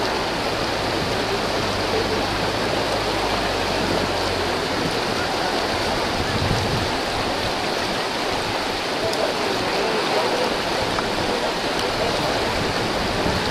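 River water rushing over a small weir and through rapids, a steady, even rush of whitewater.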